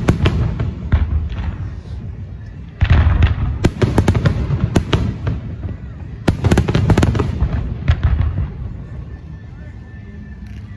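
Aerial firework shells bursting in rapid volleys of sharp cracks and bangs over a low rumble, coming in several clusters and easing off near the end.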